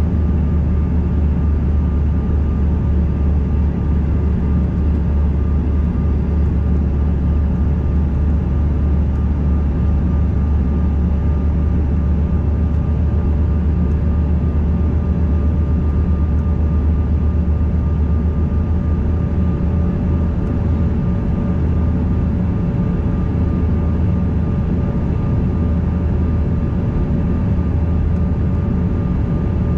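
Steady cabin drone of a Bombardier CRJ200 regional jet in flight at altitude, heard inside the cabin. Its two rear-mounted General Electric CF34 turbofans and the passing air give a deep rumble with a couple of faint steady hum tones.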